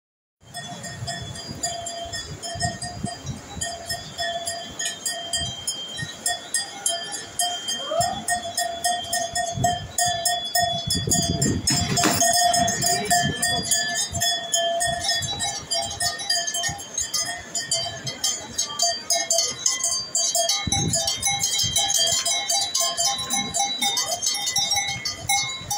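Many Swiss cowbells clanking continuously and irregularly, several bells at once, over a steady ringing tone. The clanking grows louder over the first ten seconds or so.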